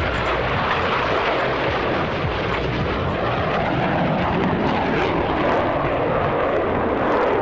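Loud, steady jet engine noise from a Blue Angels F/A-18 Hornet as it flies past and climbs away.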